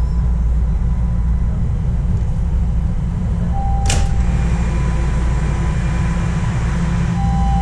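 TTC Line 1 Yonge subway train running between stations, heard from inside the car: a steady low rumble, with a sharp click about four seconds in and a short high tone around it.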